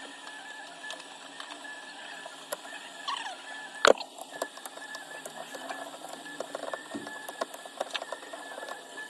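Small hand tools clicking and scraping on an iPhone 12 Pro Max during a back-glass repair: an irregular run of small clicks, with one sharp, loud click about four seconds in, over a faint steady high hum.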